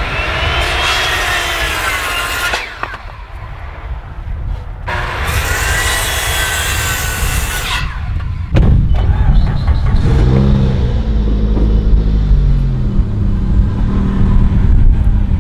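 Corded circular saw cross-cutting 2x4 studs: two cuts, each a high motor whine that sags in pitch as the blade bites and rises again as it clears. After about eight seconds a car engine running with a heavy low rumble takes over, passing close by.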